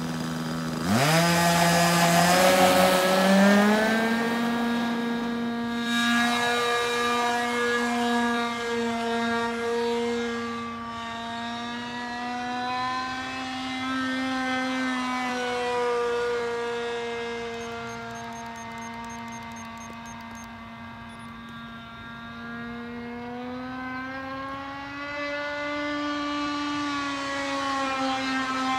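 RC airplane's O.S. 46 FX two-stroke glow engine idling, then opened up to full throttle about a second in for the takeoff run. Its high buzzing note then wavers up and down in pitch as the plane flies around, fading about two-thirds of the way through and growing louder again near the end.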